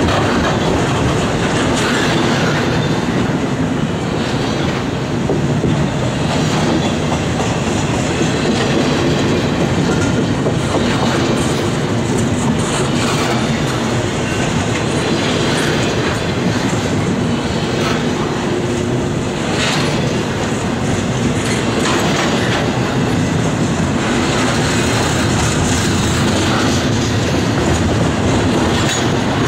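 Freight train of double-stack container well cars rolling past: a steady rumble of steel wheels on rail, with repeated clicks and knocks as the wheels cross the rail joints.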